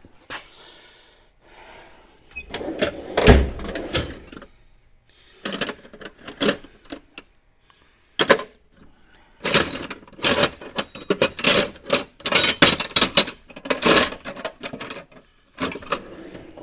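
Metal parts and tools clattering and knocking as they are handled: irregular clanks and rattles with a loud knock about three seconds in, busiest from about ten to fifteen seconds in.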